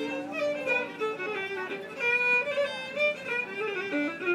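Fiddle playing a slow Irish-style phrase, some notes slid into and decorated with grace notes: the ornament called a 'dying goose', a slide combined with a grace note.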